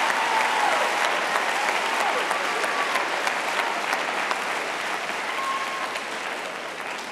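Large audience applauding in an auditorium, the applause dying away slowly toward the end.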